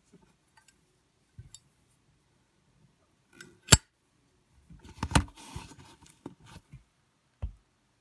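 A polished-chrome Zippo lighter's hinged lid snaps shut with one sharp clack a little under four seconds in. The metal case then clinks and rustles as it is handled and set into its cardboard box, with a dull thump near the end.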